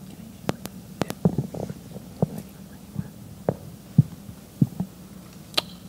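Irregular small knocks and clicks, about a dozen over a few seconds, some dull and low, a few sharp, over a faint steady low hum.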